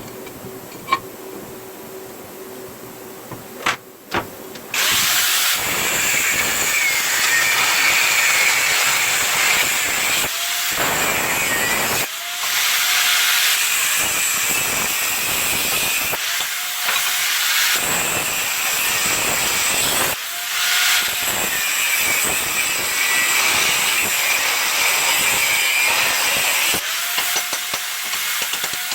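Angle grinder working steel in long loaded passes, starting about five seconds in after a few light clicks. At several short breaks the disc lifts off the work and the motor's free-running whine shows through.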